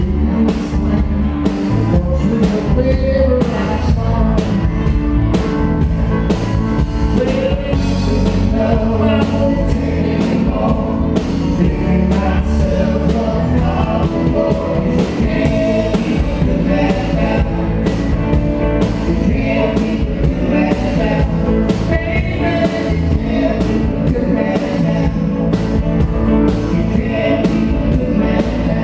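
Live band playing steadily: electric and acoustic guitars, bass guitar and a drum kit, with regular drum hits.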